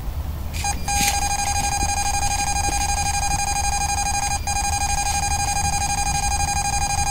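Electronic fishing bite alarm sounding one continuous high beep, starting about a second in with a brief break about four seconds in: a full run, line being pulled off the rod as a catfish takes the bait.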